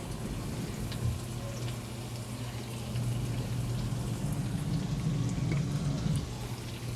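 Chicken liver simmering in oyster sauce in a pan: a steady sizzling hiss with a few small pops, over a low steady hum.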